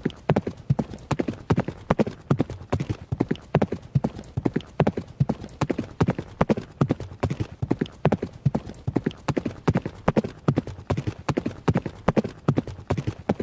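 Horse running, its hooves striking the ground in a fast, steady rhythm of clip-clop hoofbeats, several a second without a break.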